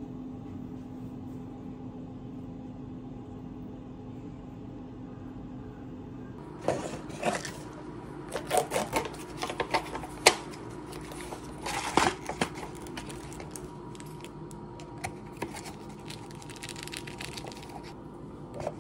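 Tableware and a paper instant-ramen cup being handled and set down on a wooden tray: a run of irregular clicks and knocks starting about a third of the way in, over a steady low hum.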